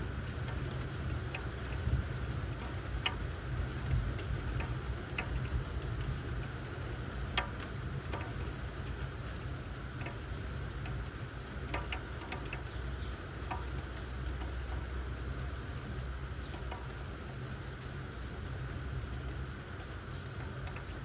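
Steady thunderstorm rain with a continuous low rumble underneath, and heavy drops landing on a hard surface as sharp irregular ticks, the loudest about seven seconds in.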